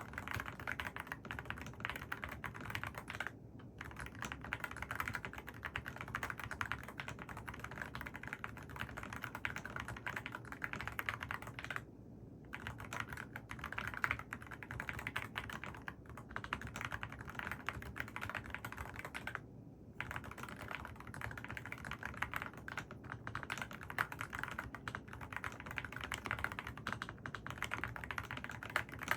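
Mechanical keyboard with AKKO Rosewood switches being typed on quickly and continuously, a dense run of keystroke clicks with a few short pauses.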